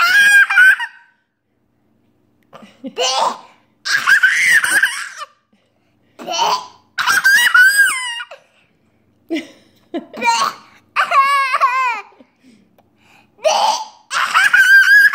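A young child laughing and squealing in short, high-pitched bouts, about ten of them with brief silences between.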